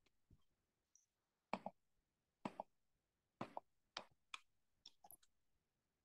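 Computer keyboard and mouse clicking: about eight short, sharp clicks, several in quick pairs, with near silence between them.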